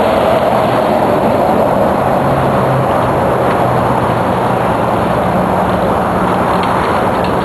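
Steady, loud rushing noise of a vehicle ride at speed, with a faint low hum underneath that shifts up and down in pitch.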